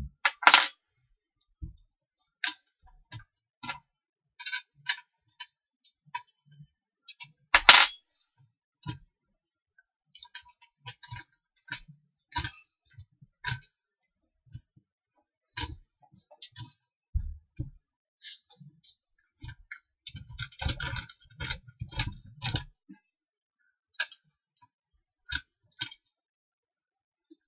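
Irregular clicks and knocks of a hand drill's press stand being adjusted by hand to raise the drill on its column, with no motor running. The sharpest knocks come about half a second in and near eight seconds in, with a quick run of rattles around twenty to twenty-three seconds.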